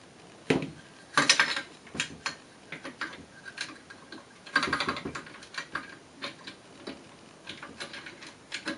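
Irregular clicks and taps of an AK pistol grip and its mounting screw being handled and fitted against the rifle's steel receiver, with short bursts of clatter about a second in and again near the middle. The screw has not yet caught its thread.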